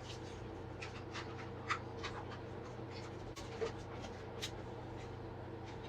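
Light scraping and clicking of a utensil as meat filling is spooned onto an empanada dough disc, over a steady low hum.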